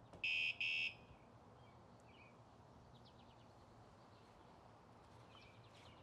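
Two short electronic beeps, close together, from a WSDCAM bike alarm unit fitted to an e-bike, followed by a few faint bird chirps.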